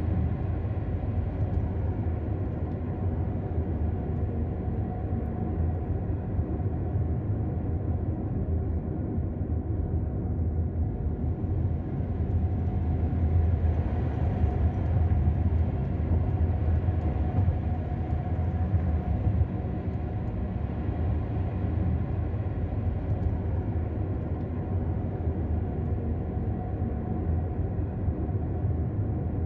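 Steady low rumble of a car's engine and tyres on the road, heard from inside the moving car's cabin, swelling a little about halfway through.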